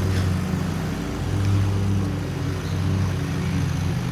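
Lawn mower engine running steadily, its level and pitch wavering slightly.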